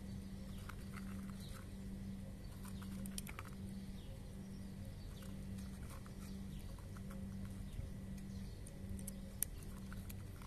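A cat crunching dry kibble: irregular small crunches and clicks as it chews, with one sharper click near the end. A low hum pulses underneath about once a second.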